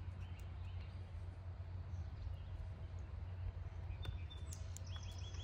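Small birds chirping over a steady low rumble of outdoor background noise, with a quick run of about five short high notes near the end.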